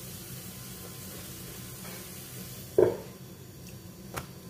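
Bitter gourd sizzling in a frying pan over a gas burner, under a steady low hum. Nearly three seconds in, the pan's lid is set down on it with a loud clunk, and a light click follows near the end.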